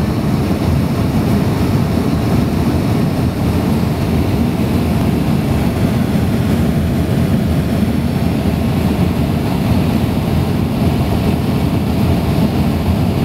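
Steady low cabin noise inside a jet airliner on its descent before landing: engine and airflow noise, even and unbroken.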